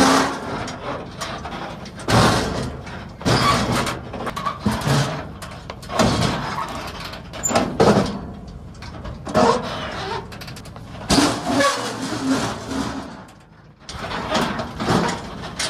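Pickup truck towing a loaded car-hauler trailer slowly over rough rock: irregular loud bursts of vehicle and trailer noise as the rig lurches over the ground.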